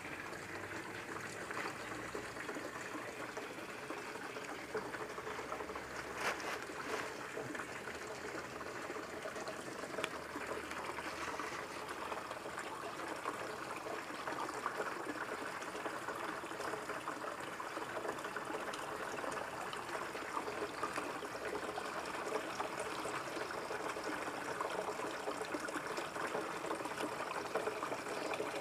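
Small waterfall spilling into a koi pond: a steady trickle and splash of falling water, growing a little louder about halfway through.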